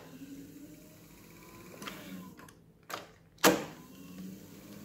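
Studer A807 reel-to-reel tape transport winding tape, the reel motors whirring with a slight rise and fall in pitch. A small click near three seconds in is followed straight after by a loud sharp clack, and the whirring then runs on.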